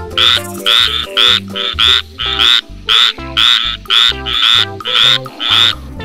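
Frog croaking over and over, a quick series of short calls about two a second, with background music underneath.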